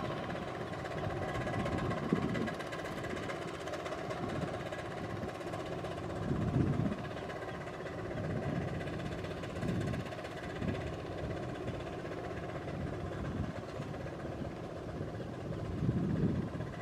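Kubota RT120 power tiller's engine running steadily while ploughing, with brief louder surges every few seconds.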